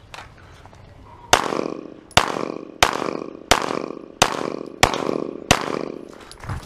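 Semi-automatic pistol firing seven shots in a steady string, about two-thirds of a second apart, starting a little over a second in; each shot rings on with an echo off the walls of the shooting bay.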